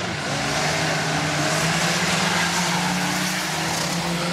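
Car engine running at steady high revs, its note drifting slightly upward, over a constant hiss of track noise.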